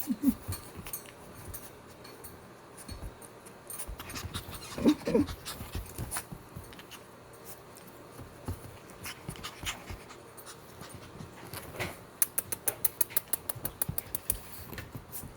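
Pomeranian puppy panting and moving about, with small clicks and scratches. A brief squeak about five seconds in, and a quick run of short clicks near the end.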